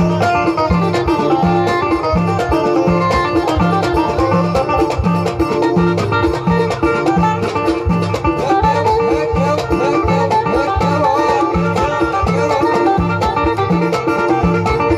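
Live Moroccan tagroupit band music: a banjo picking a quick melody close to the microphone, over a steady repeating bass line and percussion strokes.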